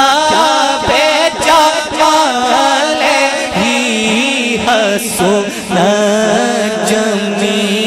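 Male voice singing a naat in long, wavering melismatic phrases without clear words. A steady low held note runs underneath from about six seconds in.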